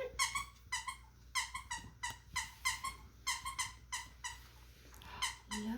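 Squeaky dog toy squeaked over and over by a puppy chewing it: a quick series of short squeaks at one steady pitch, many coming in pairs, with a short gap about four seconds in.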